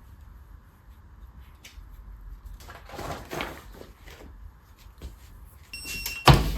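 Rustling as a bag and transfer are handled, then a short electronic beep and a loud thump just after it, typical of a heat press being worked for the transfer.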